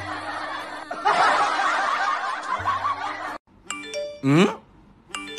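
Canned laughter over background music, stopping abruptly about three and a half seconds in. Then a doorbell-like chime and a loud swooping tone, part of a looping comedy sound effect.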